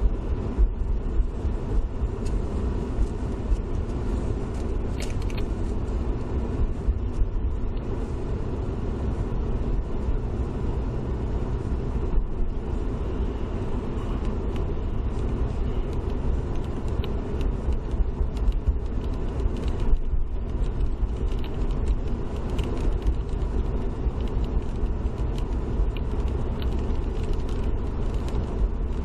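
Car driving on a wet road, heard through a dash cam inside the vehicle: a steady low road and tyre rumble with scattered faint ticks.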